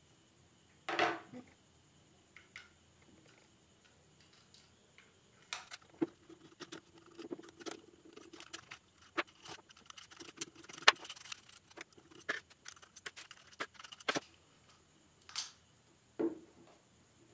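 Plastic parts of a Sony SRS-XB10 speaker being handled and taken apart: scattered clicks, taps and short scrapes as a screwdriver works screws out of the plastic housing and the internal bracket is pulled free, with the busiest clicking in the middle stretch.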